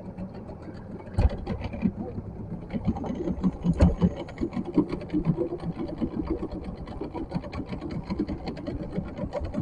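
Cast net being hauled in hand over hand from the river into a small boat, over a steady low rumble with many small ticks and two sharper knocks, about one second and about four seconds in.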